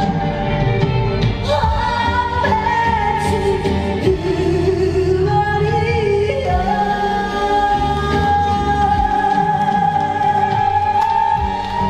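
A woman singing long, held notes through a microphone and PA, with an amplified backing track underneath.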